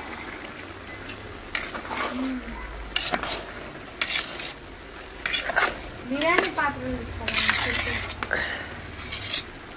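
Long metal ladle stirring and scraping biryani rice in a large metal cooking pot, in irregular strokes with a busier, louder run of scrapes from about five to eight seconds in.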